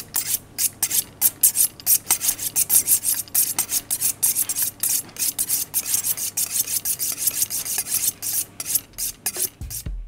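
A butcher's knife being sharpened on a steel, quick repeated scraping strokes at about four a second.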